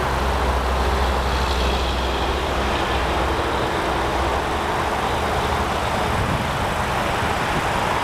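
Steady traffic rumble: a low, even hum under a constant hiss, with no distinct events.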